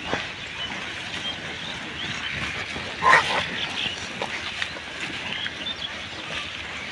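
A herd of pigs foraging in a rubbish heap, with scattered small clicks and rustles from the litter and one short, loud animal call about three seconds in.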